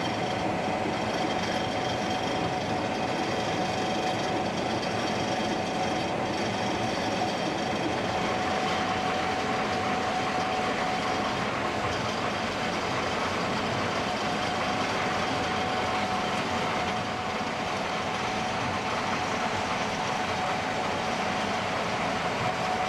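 Gleaner S67 combine running steadily while harvesting soybeans: a dense mechanical rumble with a steady high hum over it.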